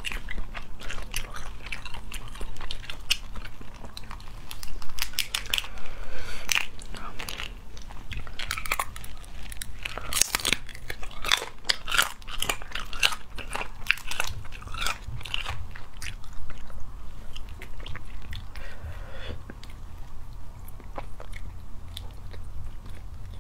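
Spicy crayfish being shelled by hand and eaten: shells cracking and crackling as they are pulled apart, with biting and wet chewing. Many sharp crunches and clicks, busiest about halfway through.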